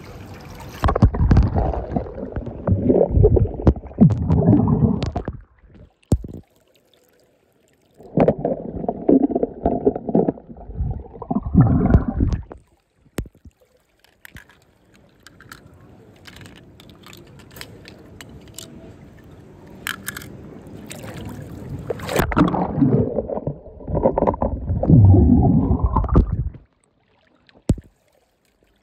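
Water splashing and sloshing in three bouts of several seconds each, starting about a second in, about eight seconds in and about twenty-two seconds in, with quieter stretches between.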